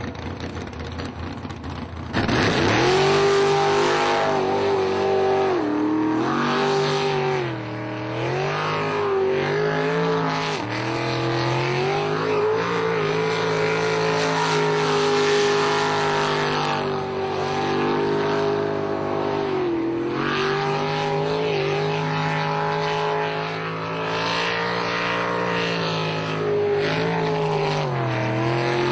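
Jet boat engine revving up sharply about two seconds in, then running hard at high revs. The pitch dips and climbs again and again as the throttle is eased and reopened through the turns of the course.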